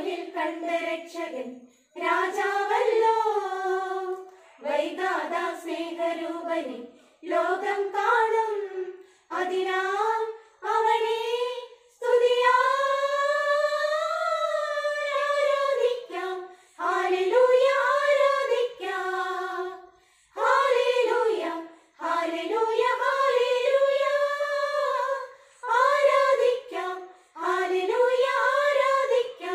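A small women's choir singing a Christmas carol without accompaniment, in phrases of a few seconds broken by short pauses, with one longer held phrase about halfway through.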